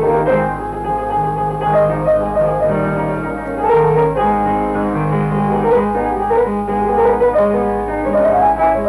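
Background music led by piano over a bass line of held notes, with some brass and strings.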